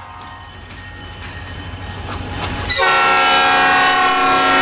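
EMD SD40-2 diesel locomotive approaching a grade crossing, its engine rumble growing louder. About three seconds in, its horn starts a loud, steady blast that carries through to the end.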